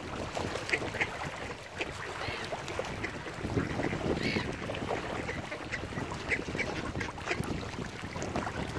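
Short, scattered waterbird calls, with one longer call about four seconds in, over a steady rumble of wind on the microphone.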